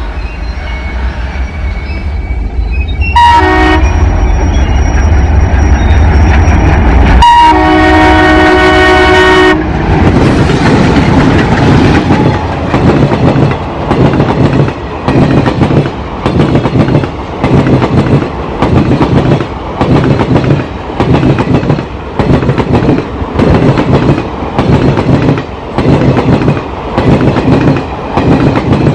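ALCo diesel locomotive with its deep engine rumble, sounding its horn in a short blast about three seconds in and a longer blast about seven seconds in. From about ten seconds the train goes past and the wheels clatter rhythmically over the rail joints, about one beat a second.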